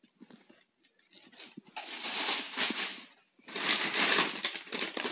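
Plastic carrier bag rustling and crinkling as a hand rummages through the packages inside it, in two long stretches with a short break between them about three seconds in.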